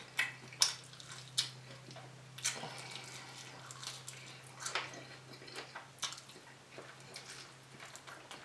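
Close-miked eating sounds: wet chewing, lip smacks and sharp mouth clicks as a fried chicken wing is bitten and eaten, the loudest click right at the start. A steady low electrical hum sits underneath.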